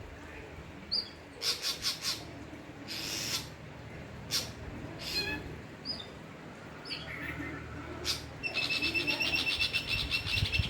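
Dull-blue flycatcher calling in a varied series: short chirps and a few harsh, scratchy notes, then from about eight and a half seconds a fast, steady trill.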